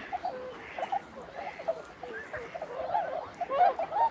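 A large flock of waterfowl calling together: many short calls overlapping without pause, some louder calls standing out toward the end.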